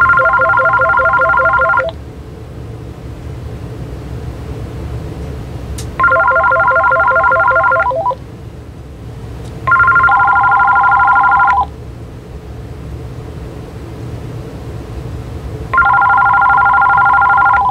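AT&T EL52419 DECT 6.0 cordless phone ringing: four electronic ring bursts of about two seconds each. The first two are a fast warbling trill and the last two a different, steadier two-tone ring, over a steady low background hum.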